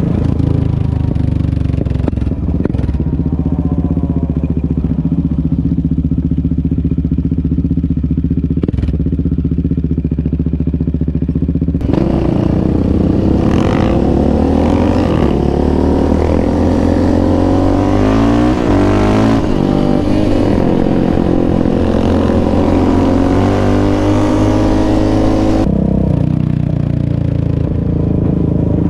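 Sport ATV engine running steadily while cruising, then about twelve seconds in revving up and down as it accelerates through the gears. Near the end the engine sound changes abruptly.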